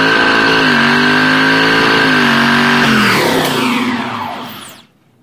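1993 Infiniti Q45's V8 exhaust held at high revs with a steady high whine over it, as the wheels spin in snow. The revs fall away about three seconds in, and the sound dies out shortly before the end.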